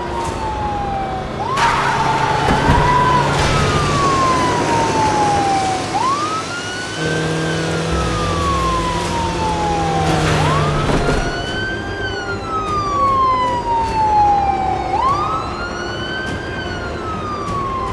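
Police car siren wailing: each cycle rises quickly in pitch and then falls slowly, about every four and a half seconds, four times, with vehicle noise underneath.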